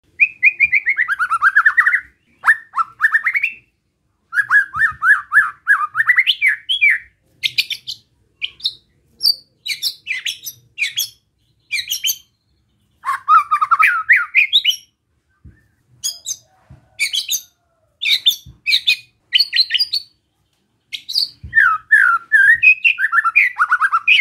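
White-rumped shama singing besetan: short bursts of rapid, rasping repeated notes, some sweeping downward and some sharp and clicking, with brief pauses between phrases. Besetan is the agitated, challenging song that keepers use to provoke other shamas into singing.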